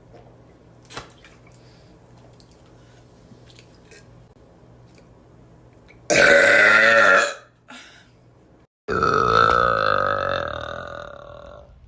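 A woman's two loud burps: a short one of about a second a little past the middle, then a longer one of nearly three seconds that trails off.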